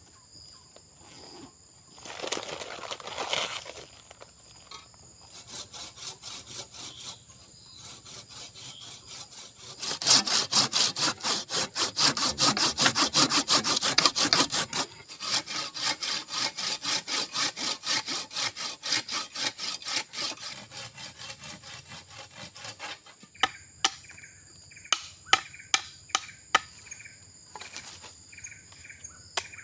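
A hand saw cutting through wood in fast, even strokes, about five a second, loudest in the middle stretch, over the steady high buzz of forest insects. The sawing stops and a few separate knocks on wood follow near the end.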